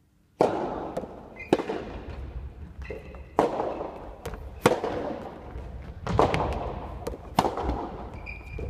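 Soft tennis rally in a large hall: sharp pops of the rubber ball off the rackets and bouncing on the wooden floor, about one every second or so, each echoing, with a few brief shoe squeaks on the floor between them.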